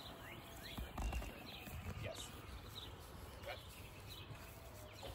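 Faint outdoor ambience with birds chirping now and then, short downward-sliding calls, and a couple of soft low thumps about a second in.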